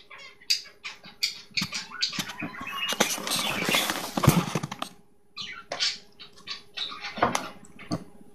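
Pet finches in a cage giving many short, quick chirps and peeps, with a stretch of rustling about three seconds in that ends in a sharp click.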